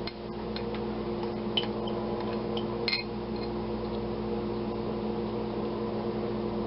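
Steady electrical hum in a kitchen, holding one low pitch with its overtones, with a few faint small clicks and taps about two to three seconds in.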